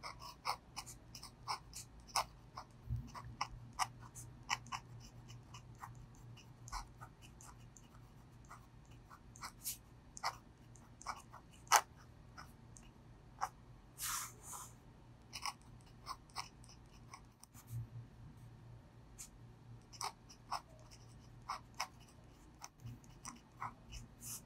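Brause Steno steel dip-pen nib scratching across thick paper in short, irregular strokes as Korean characters are written, a few strokes a second with a couple of longer scrapes about halfway through. A faint steady low hum sits underneath.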